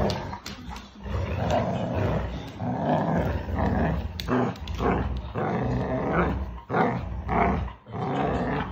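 Dogs play-growling during a tug-of-war over a rope toy: a rough, continuous growl that swells and dips in short bouts, with a few sharp clicks.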